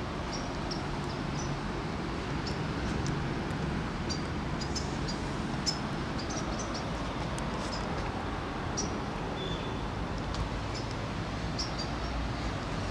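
A steady low outdoor rumble, with short, high bird chirps scattered through it.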